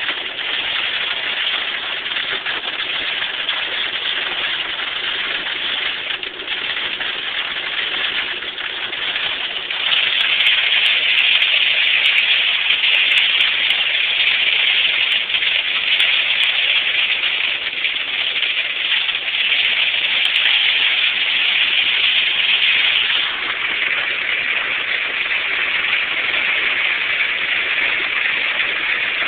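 Hail and rain pelting down in a steady hiss. It grows heavier about ten seconds in, with scattered sharp hits of individual stones, then eases a little about two-thirds of the way through.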